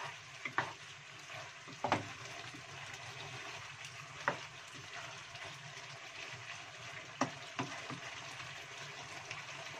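Spicy chicken feet sizzling in a frying pan as a wooden spatula stirs them through the thick, reducing sauce, kept moving so it doesn't burn. Several sharp knocks of the spatula against the pan cut through the steady frying hiss, the loudest about two seconds in.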